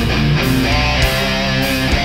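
Studio recording of a heavy metal band playing: distorted electric guitars holding notes over bass guitar and a regular drum beat with cymbal hits.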